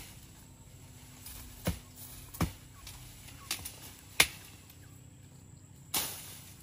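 Wood being chopped: about six sharp, irregular chops, the loudest about four seconds in.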